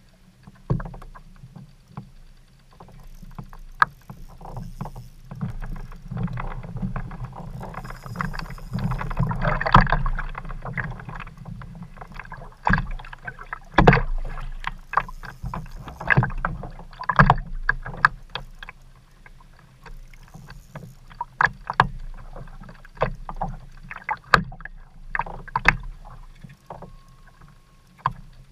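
Sea water slapping against a fishing kayak's hull, with many scattered knocks and clicks from the boat and from a spinning reel being wound in.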